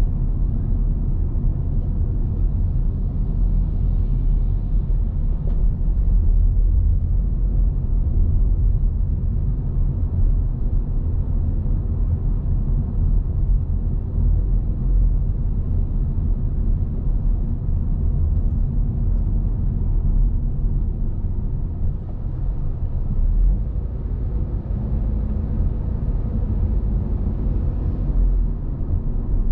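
Car driving along at a steady pace: a continuous low rumble of engine and road noise with no sudden events.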